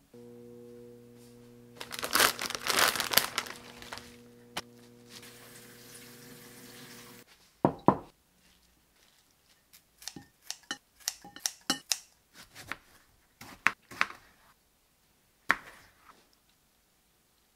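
A steady electrical hum of several tones runs for about seven seconds and cuts off sharply. Plastic packaging crinkles and tears over it in the second and third seconds. Then come two loud clacks and a run of light clicks and taps.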